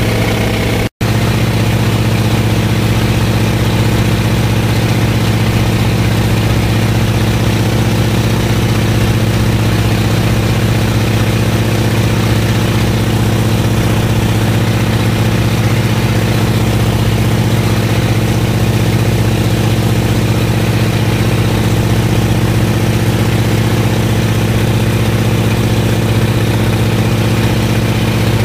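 Float plane's engine and propeller droning steadily in cruise flight, heard from inside the cabin. The sound cuts out for an instant about a second in.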